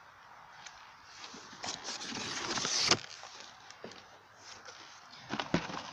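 Packaging being handled as a cardboard shipping box is opened: a rustling, scraping noise builds for about a second and stops abruptly about three seconds in, followed by a few light knocks near the end.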